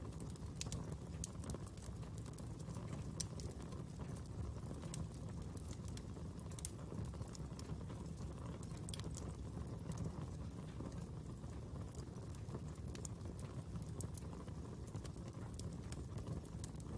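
Fire crackling: irregular sharp pops and ticks over a steady low rumble.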